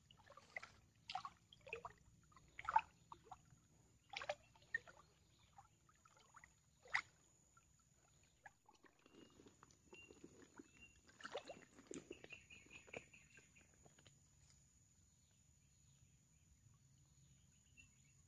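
Faint splashing and sloshing of shallow swamp water as a hooked snakehead is pulled in and landed by hand, with scattered sharp splashes early on and a busier patch of sloshing about halfway through. A few short high chirps sound briefly over it.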